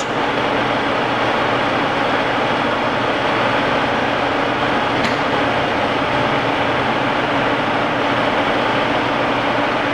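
Carlton radial arm drill running under power, its 3-horsepower main drive motor and head gearing giving a steady, even mechanical hum, with one faint click about five seconds in.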